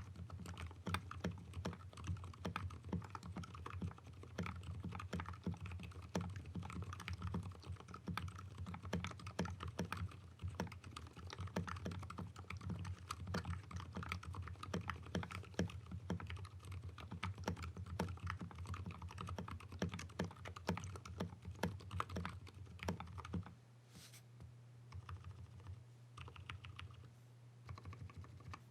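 Fast, continuous typing on a mechanical keyboard with Gateron Silent Black linear switches in a fiberglass FR4 plate and a wooden 60% case, with thick PBT keycaps, giving a deep keystroke sound. About 23 seconds in the typing thins to a few scattered key presses.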